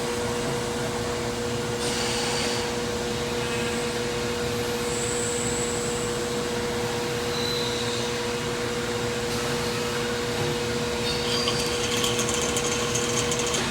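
CNC machine running while machining a metal nipple adaptor: a steady motor hum under continuous machining noise. There is a short high whine about five seconds in and again at about seven and a half seconds, and a rapid crackle of clicks near the end.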